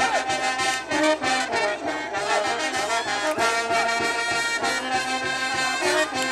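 Brass band music, trombones and trumpets playing a tune over a steady beat.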